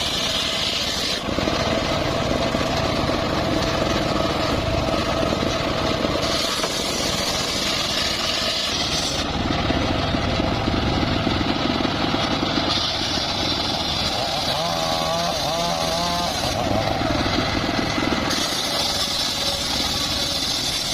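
Homemade circular sawmill running steadily under engine power while its blade rips a log. A higher, hissing cutting sound comes and goes several times.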